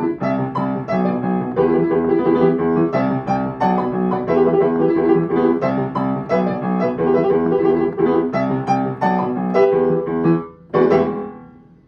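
Piano music, a steady stream of struck notes and chords that stops briefly near the end, then a final chord that rings and fades out.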